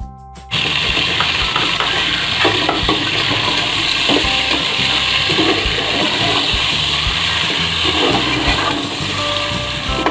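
Chicken frying in hot oil in an aluminium pot, breaking into a loud, steady sizzle about half a second in as the liquid yogurt-and-spice masala hits the oil. A steel spoon scrapes and knocks against the pot as it is stirred.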